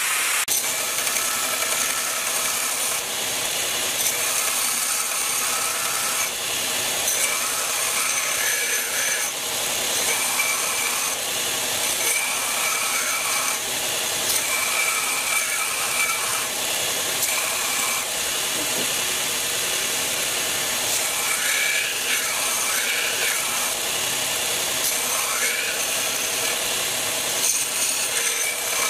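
Belt grinder running steadily while a steel blade cut from a spanner is held against the moving belt to grind its edge.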